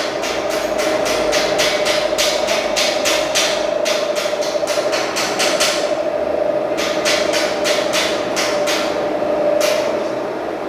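Hammer blows on metal in a quick even rhythm, about three to four strikes a second, over a steady machine hum. The hammering pauses briefly midway, then resumes for a few more strikes.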